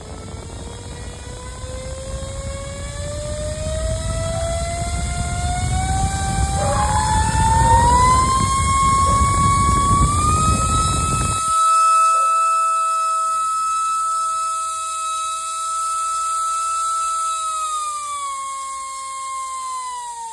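Small DC motor spinning a plastic fan, driven by a PWM speed controller and run up to full throttle: its whine rises steadily in pitch over about ten seconds, holds, then drops near the end as it is turned down. A rushing noise under the whine cuts off suddenly about halfway through.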